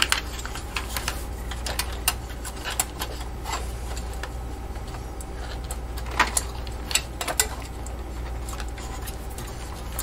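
Scattered clicks and light rattles of a SATA cable and its plastic connector being worked into a desktop computer's sheet-metal chassis by hand, with a few sharper knocks about six to seven and a half seconds in. A steady low hum runs underneath.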